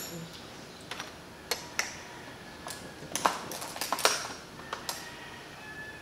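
Glass laboratory ware being handled: test tubes and a glass pipette clicking and clinking against each other and the rack in a scatter of light, sharp clicks, the loudest about three and four seconds in.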